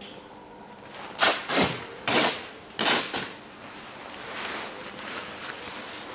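Three short rustles of cloth or plastic being handled, about a second in and less than a second apart, then only faint background.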